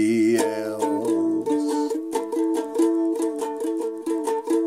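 Ukulele strummed in a steady rhythm, moving back and forth between two chords. A sung note trails off in the first half-second.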